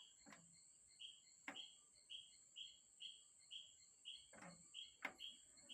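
Faint chirping from a bird, one short note repeated about twice a second over a steady high whine, with a few sharp clicks.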